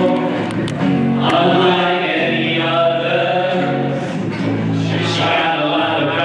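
Choral singing as background music, voices holding long notes that change every second or so.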